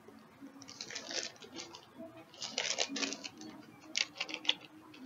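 Plastic snack pouch crinkling as it is handled and opened, in three irregular bursts of crackling about a second or so apart.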